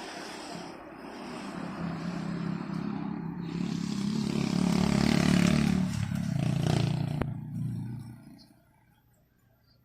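A motor running with a low hum, growing louder to about halfway through and then fading away near the end.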